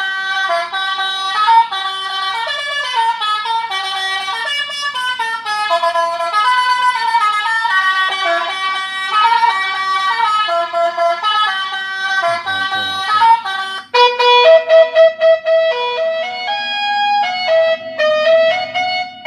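Electronic basuri (telolet) horn playing melodies through a horn loudspeaker: a continuous tune of notes stepping up and down in pitch. About 13 seconds in it falls away in a brief downward glide and switches to a choppier tune of short, repeated notes.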